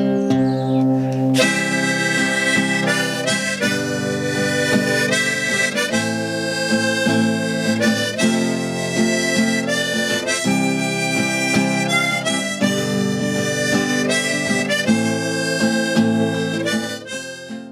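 Outro music: a harmonica melody over strummed acoustic guitar, the harmonica coming in about a second and a half in, and the music fading out near the end.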